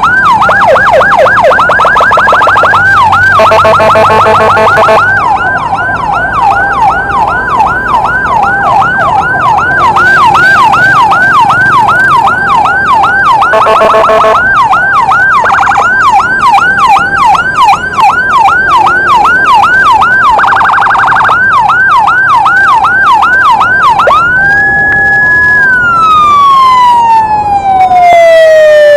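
Electronic emergency siren in fast yelp mode, about five rising-falling sweeps a second, broken three times by a short steady blaring tone. Near the end it switches to a slow wail that rises, holds and falls away.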